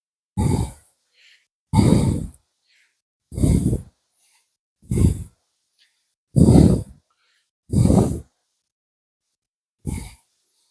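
A man breathing hard from exertion during a cardio exercise set. Seven heavy, noisy breaths come about one and a half seconds apart, the last after a slightly longer pause.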